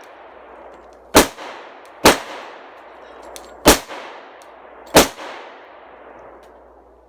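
Four shots from a Glock 23 .40-calibre pistol fired at an uneven pace, each followed by a ringing echo that dies away over about a second. The pistol fires them one after another with no stoppage in between.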